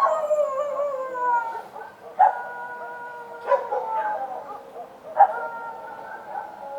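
Street dogs howling: four long calls, each starting sharply and sliding down in pitch, overlapping one another.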